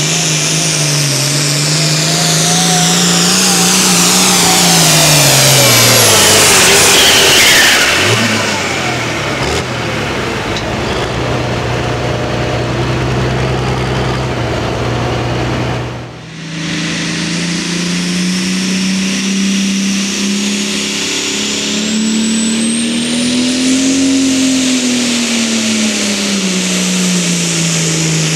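International pulling tractor engines at full power. The first engine's pitch climbs, then sags as it bogs down under the sled, and it drops to a low, steady running note. After a sudden cut, a second tractor's engine pulls hard, its pitch swelling and easing, with a high whine rising slowly above it.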